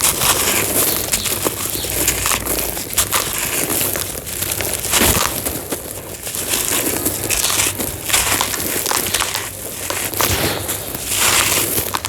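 Homemade gritty cement being crushed and crumbled: a dense, continuous run of crunching, crackling and snapping as the dry pieces break apart.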